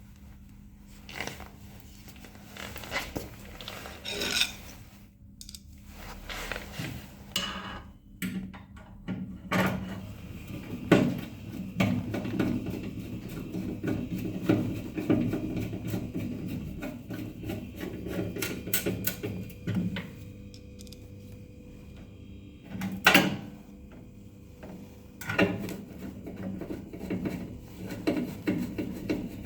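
Irregular knocks, clicks and rubbing of hard objects being handled, the loudest knocks about eleven and twenty-three seconds in, over a faint steady low hum.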